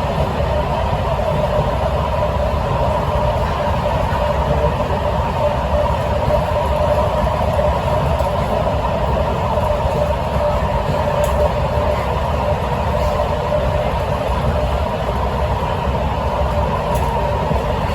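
Interior running noise of a Kawasaki–CRRC Qingdao Sifang C151A MRT train travelling at steady speed: a continuous low rumble with a steady mid-pitched hum that does not rise or fall.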